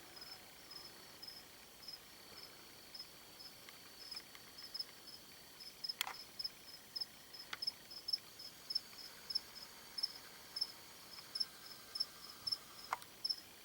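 Crickets chirping at night: faint, high pulsed chirps repeating steadily over a continuous high trill, with a few faint clicks.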